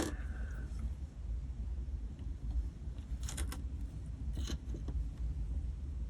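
Two short bursts of small objects being handled, about three and four and a half seconds in, over a steady low hum.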